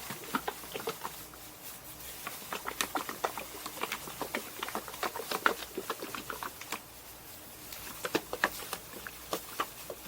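Stir stick clicking and tapping against the container in quick, irregular strokes as two-part Custom Coat bed liner paint is mixed with its hardener.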